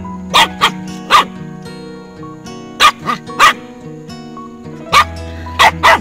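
Puppies yipping and barking in play-fighting: short, sharp barks in three quick clusters of about three, over background music.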